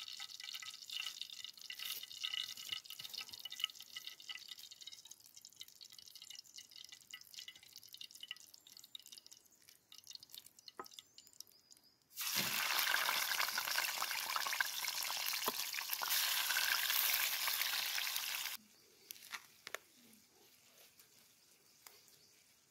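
Hot oil in a pan on campfire embers crackling and spitting. About twelve seconds in, fish pieces are laid into the oil and it sizzles loudly for about six seconds, then cuts off suddenly. Faint scrapes of a hand trowel in soil follow.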